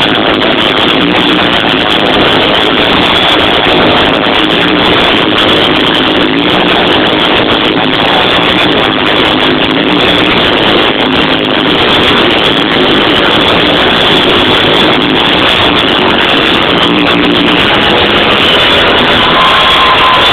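Loud electronic dance music from a festival sound system, recorded so close to overload that it is saturated into a steady distorted roar in which little of the music can be made out.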